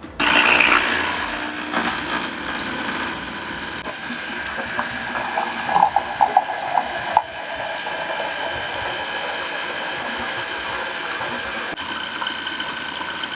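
Capsule espresso machine's pump running steadily while it brews a coffee from a capsule; it starts suddenly, with a few sharp crackles about six seconds in.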